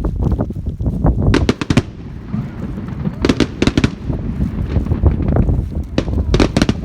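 Fireworks going off: three clusters of rapid sharp cracks, about a second and a half in, around three seconds in and again near the end, over a steady low rumble.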